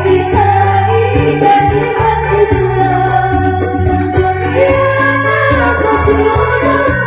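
Sholawat song performed live through a PA: a woman singing a wavering melody over electronic keyboard accompaniment with steady bass notes and fast, light percussion ticking.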